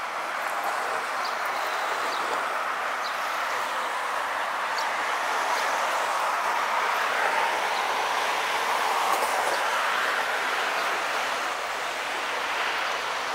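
City road traffic: cars passing with a steady hiss of tyres, swelling in the middle as a car goes by and easing off near the end.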